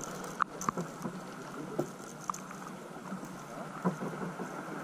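Water lapping and dripping around a sea kayak: a few light plinks and ticks over a steady low hiss.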